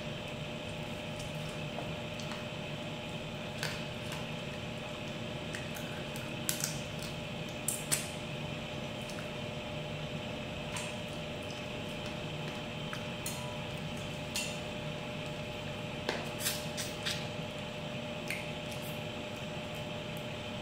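Close-up mukbang eating sounds: wet mouth noises while picking at and eating fried fish by hand, with about ten short clicks and taps against a plate, the sharpest about 6.5 and 8 seconds in, over a steady background hum.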